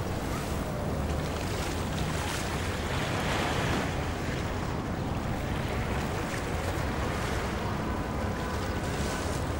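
Steady harbourside ambience: a constant wash of wind and water noise over a low rumble, with no distinct events.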